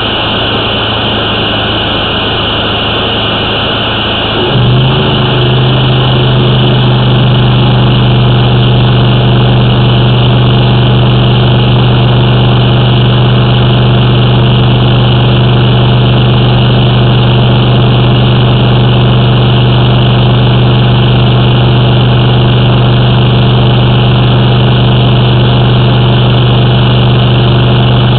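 An engine running steadily, then stepping up to a louder, slightly higher hum about four and a half seconds in, and holding there.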